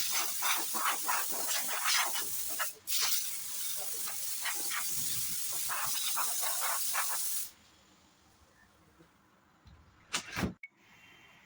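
Compressed air hissing from an air gun in continuous spraying blasts, pulsing slightly and briefly broken near three seconds in, cut off sharply about seven and a half seconds in. A short second blast comes near the end.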